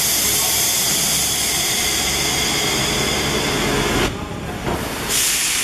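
Compressed air hissing steadily for about four seconds, then cutting off abruptly; a second hiss starts about five seconds in, over a low machinery drone.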